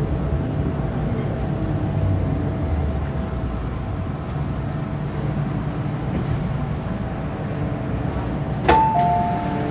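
MTR M-Train electric multiple unit rumbling as it slows to a stop in an underground station. Near the end a sharp click is followed by a two-note chime, high then lower, as the doors are about to open.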